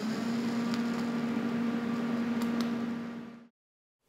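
TIG welding arc on steel plate laying a tack on a T-joint without filler wire, a steady buzzing hum. It cuts off suddenly near the end.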